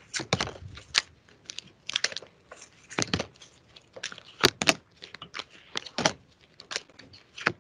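Tarot cards being shuffled and drawn: a run of irregular short snaps and clicks, two sharper ones about three and four and a half seconds in.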